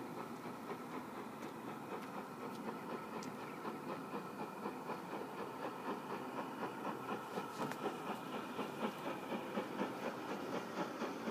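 GWR 5101-class 'Large Prairie' 2-6-2 tank locomotive approaching under steam, its exhaust chuffing in a regular beat of about two to three a second that grows louder as it nears.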